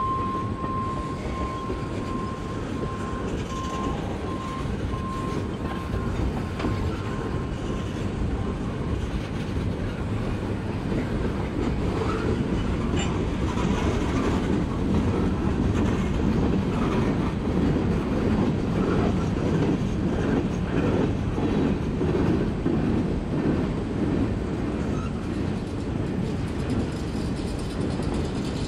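Freight train cars (tank cars, then autoracks) rolling past: a steady rumble of steel wheels on rail with clickety-clack over the rail joints, growing a little louder partway through. A faint repeating beep sounds at the start and fades out about eight seconds in.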